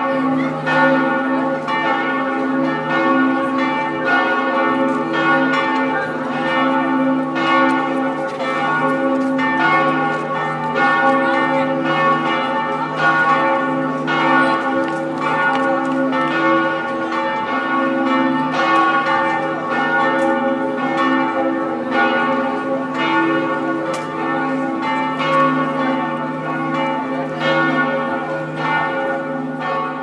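Several church bells pealing together, their strikes overlapping and ringing on in a continuous peal of different pitches.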